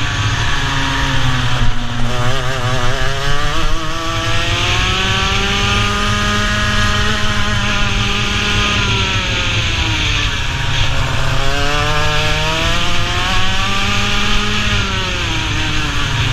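Racing kart's engine at full throttle on track, its note climbing over the first few seconds, holding high, dropping around the ten-second mark as it brakes for a corner, then climbing again and falling near the end. Wind noise on the onboard microphone runs underneath.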